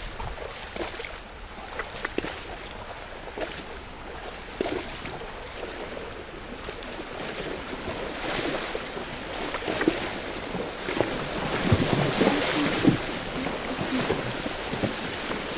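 Horse wading through high, rain-swollen creek water, with splashing and sloshing around its legs that grows louder from about halfway through.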